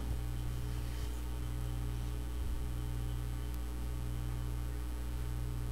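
Steady low electrical mains hum with faint hiss, with no other sound standing out.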